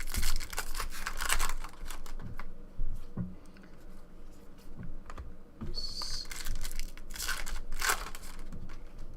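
Trading cards being flipped and shuffled by hand: quick clicks and rustles of card stock against card stock, with some crinkling of pack wrappers.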